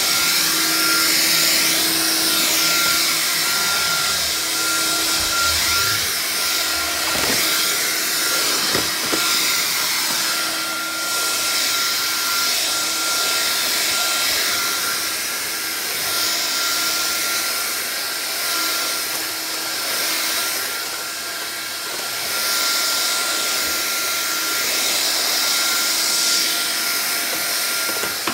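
Vax Air Cordless vacuum cleaner running steadily, its motor a continuous hiss with a steady whine, swelling and easing slightly as it is pushed around, with a few faint knocks about a quarter of the way in.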